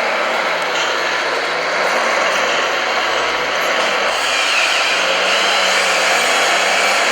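Steady whirring of the small electric motors and hydraulic pumps of radio-controlled model construction machines working, with a faint whine that shifts in pitch about four or five seconds in.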